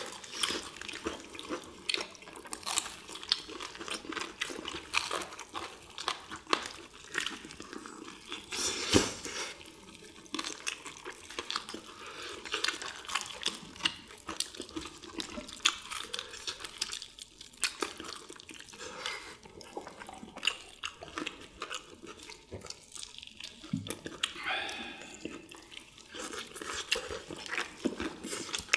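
Close-miked eating of fried chicken and battered squid: a steady run of crisp crunches, wet chewing and meat being torn apart, with one louder crack about nine seconds in.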